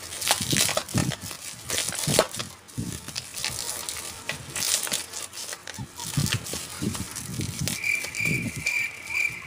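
Plastic packaging crinkling and tearing as it is handled and opened by hand, in irregular crackles. Near the end a steady chirping starts, about two chirps a second.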